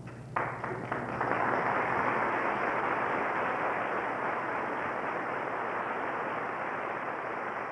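Large audience applauding: a few separate claps about half a second in, building within a second into a steady, dense wash of clapping.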